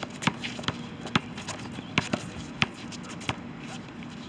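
Basketball being dribbled on a concrete court: a run of sharp, irregularly spaced bounces that stops after about three seconds.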